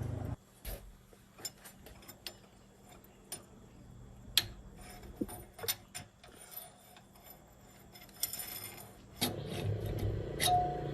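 Irregular clicks and clinks of metal tools and engine parts being handled. A low rumble cuts off just after the start and comes back near the end.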